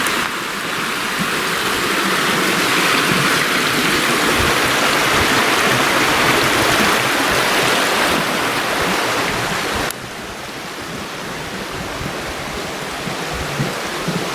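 Rushing water of a mountain creek or falls, a steady dense rush. About ten seconds in it cuts abruptly to a somewhat quieter rush.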